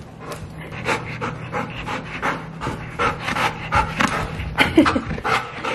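Bernese mountain dog panting in quick, even breaths, excited and eager to go out.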